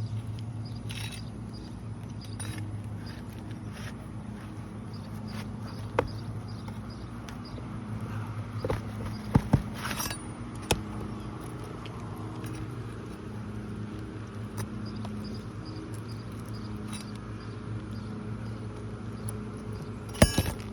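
Hand tool scraping and knocking against asphalt shingles as their nails are pried out, with sharp knocks and clicks once at about six seconds, a cluster around the middle and another near the end, over a steady low hum.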